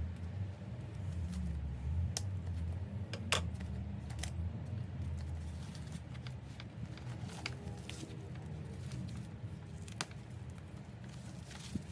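Handling noise from unboxing: a few sharp light clicks and clinks, like bag hardware or packaging being moved, with soft rustling over a low steady hum.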